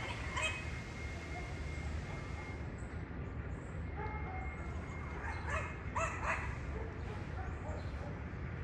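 A dog giving a few short barks: one about half a second in, then a quick cluster of two or three past the middle, over a steady low background rumble.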